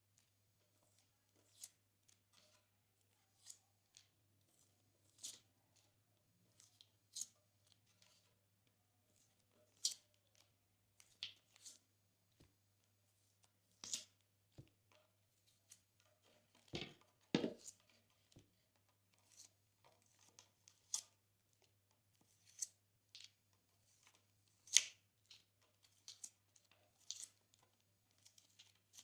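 Glossy slime being pressed and squeezed by hand, giving scattered soft clicks and small bubble pops about once a second. A louder, fuller pair of pops comes about halfway through and another near the end.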